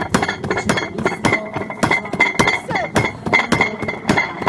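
Sledgehammer striking the metal hammer box again and again: a quick, even series of sharp metallic clanks.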